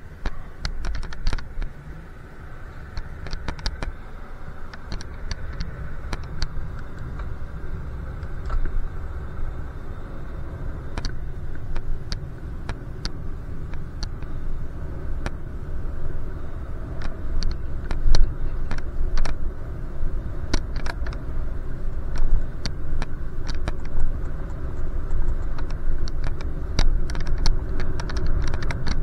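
Riding a bicycle on the road: a steady low rumble of wind and road noise, with many short rattling clicks scattered throughout. It grows somewhat louder in the second half.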